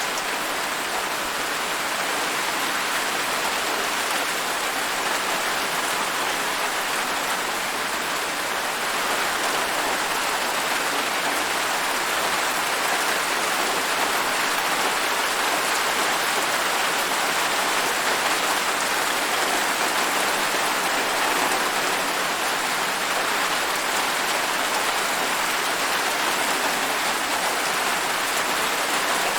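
Steady rain falling, an even hiss of many drops that gets a little louder about nine seconds in.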